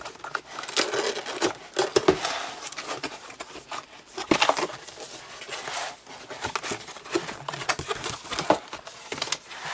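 A stiff cardboard product box being forced open by hand: flaps scraping, crinkling and tearing, with scattered sharp clicks and knocks as it is handled.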